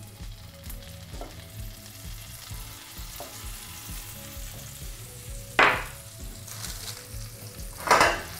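Butter dropped into a hot, dry stainless-steel sauté pan, sizzling sharply twice, about five and a half seconds in and again near the end, each burst dying away within half a second. The pan is hot but not scorching, so the butter melts without burning.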